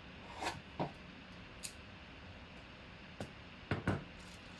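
A cardboard trading-card box being handled and opened by hand: a handful of short rustles and taps, the loudest pair near the end.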